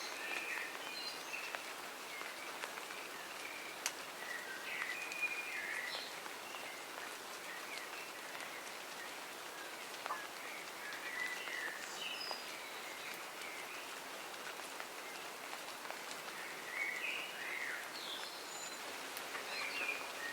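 Steady rain falling in a garden, with small birds giving short chirps on and off throughout and a few sharp single drips.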